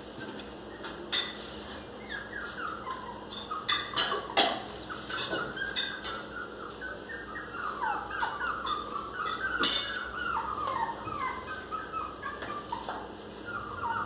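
Miniature pinscher whining and crying in a run of short high whimpers that rise and fall in pitch: a dog begging to be let into the house. A few sharp knocks against the glass door come in between, the loudest about two-thirds of the way through.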